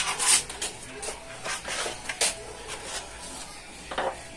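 Sandpaper sheets being handled and shuffled by hand on a workbench: papery rustling with a few short knocks and clatters.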